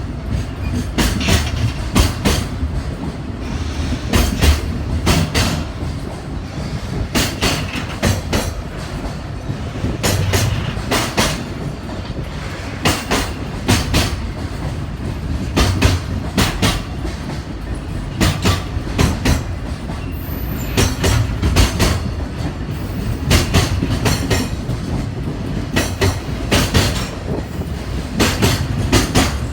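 Freight train passing close by, a steady low rumble with wheels clattering in repeated clicks over the rail joints.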